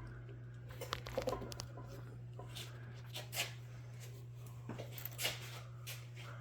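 Faint clicks and scrapes of brass parts being handled as a threaded piece is tried onto threads fouled with silver solder, over a steady low hum.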